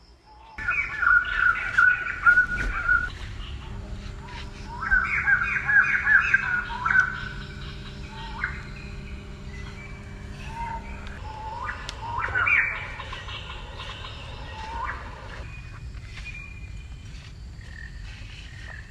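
A bird calling in three bursts of quick, repeated chirping notes: about a second in, again around five seconds in, and near twelve seconds, over steady outdoor background noise.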